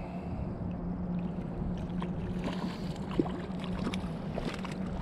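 Light, irregular knocks and clicks of handling aboard a kayak on the water, over a low steady hum.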